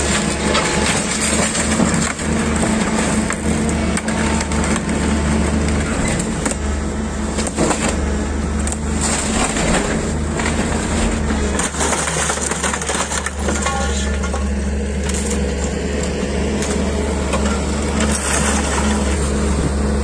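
Tracked hydraulic excavator's engine running steadily while its demolition grab crushes and tears apart a shack of wooden boards and corrugated sheet metal, with repeated irregular cracking, crunching and scraping of wood and metal as debris drops into a steel skip container.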